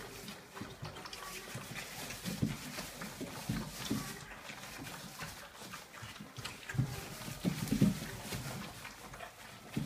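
A litter of 34-day-old Dobermann puppies feeding together from one bowl: irregular small grunts and eating noises, over the crackle of shredded newspaper shifting under their paws.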